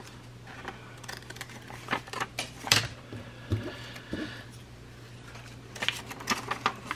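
Scissors snipping the corners off a folded paper pocket, mixed with the rustle and tap of paper being handled: scattered short sharp clicks, the loudest nearly three seconds in and a small run of them near the end.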